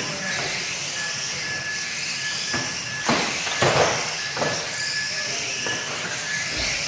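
Radio-controlled saloon cars racing on a carpet track: the high whine of their motors rises and falls as they accelerate and brake, with a few sharp knocks about three seconds in as cars bump.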